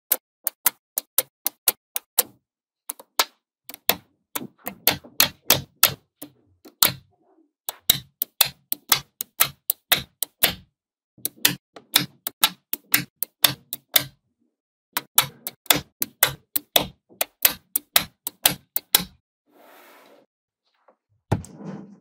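Small magnetic balls clicking sharply into place one after another, about three to four clicks a second in runs with short pauses. A brief softer rustle and a duller knock come near the end.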